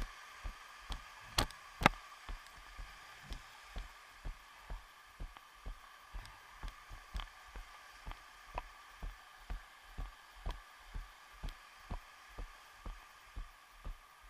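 Regular thumps about twice a second, at walking pace: each step jolts the carried camera and its mount. Two louder knocks come about one and a half to two seconds in, over a faint steady hum.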